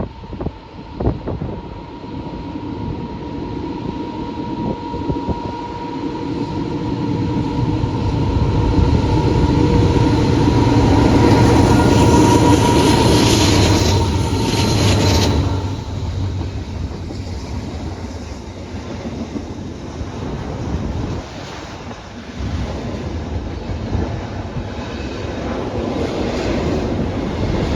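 Two rebuilt CSX diesel locomotives approach and pass, their engines growing louder to a peak about halfway through, then dropping away suddenly. The train's cars follow, rolling past with a steady rumble and wheel clatter.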